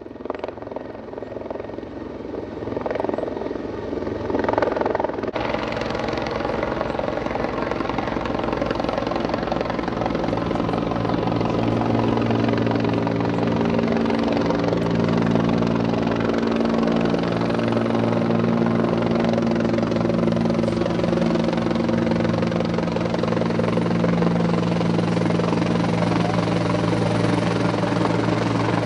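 A Bell 412 twin-engine helicopter's rotor and turbines, growing louder over the first five seconds as it closes in. Then a steady heavy rotor beat with a low, even drone as it flies close overhead.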